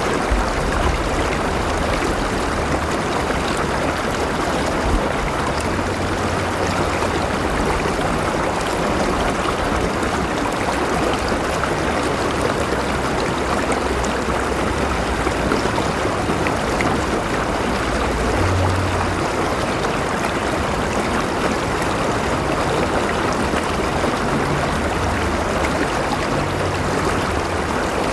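River water flowing steadily over stones, a continuous rushing and burbling with a faint low rumble underneath.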